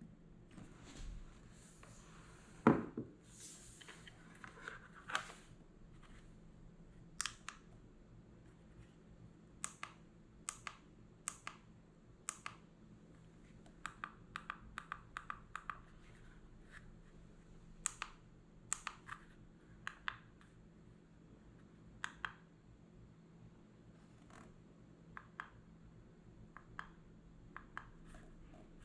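Repeated sharp clicks of buttons being pressed on a candle warmer lamp's inline cord controller, singly and in quick runs, after one louder knock about three seconds in as the lamp and candle jar are handled.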